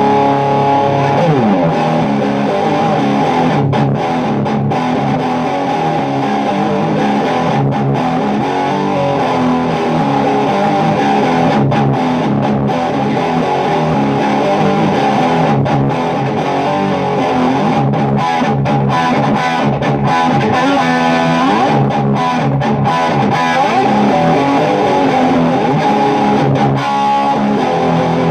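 Electric guitar played through a Port City 'Brit 50' single-channel 50-watt tube amp head into a speaker cabinet, with a distorted tone. It plays a continuous run of chords and single-note lines, with a few pitch slides.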